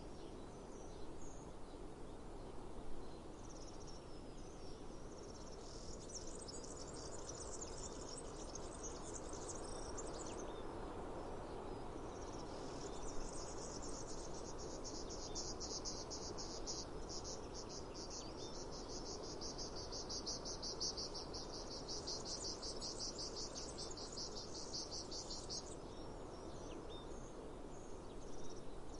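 Cicadas buzzing with a fast, pulsing rhythm over a steady background hiss. The buzz starts a few seconds in, breaks off for a couple of seconds, then comes back stronger and stops a few seconds before the end.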